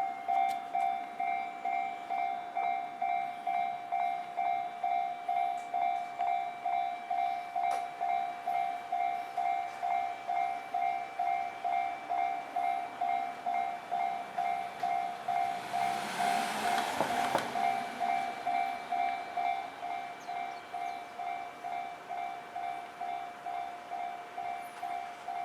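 Japanese level-crossing warning bell ringing in a steady electronic ding-ding, about two strokes a second. A train rushes through the crossing about sixteen seconds in, its noise swelling and fading within a couple of seconds while the bell keeps ringing.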